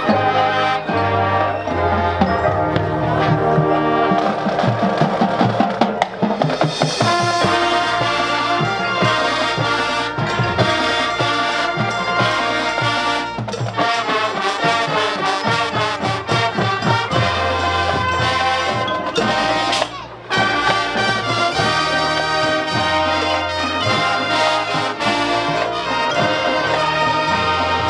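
Marching band playing a Motown arrangement: brass section and drumline together, with a short break about twenty seconds in before the full band comes back in.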